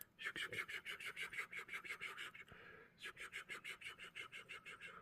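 Rapid rhythmic scratching on a surface, about seven strokes a second, in two runs with a short pause between them.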